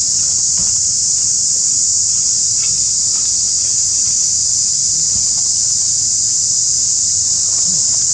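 Steady high-pitched insect chorus droning without a break, with faint low rustles underneath.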